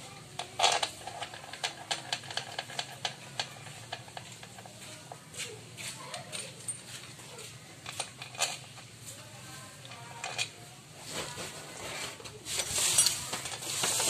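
Small metallic clicks and taps from hands and screws working on a motorcycle's chrome clutch side cover as it is pressed on and its screws are fitted, with a louder run of clinks near the end.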